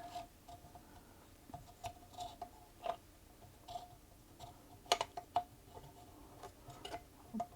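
Faint, irregular clicks and taps of small metal sewing-machine parts as a gear is fitted onto a Singer Featherweight 221K's lower shaft, with two sharper clicks about five seconds in.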